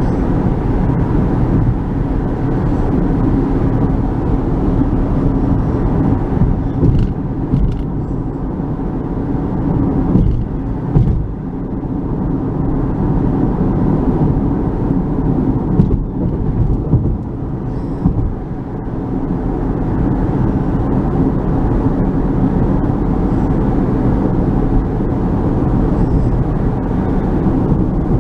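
Steady road and engine noise heard inside a moving car's cabin on the highway, a continuous low rumble.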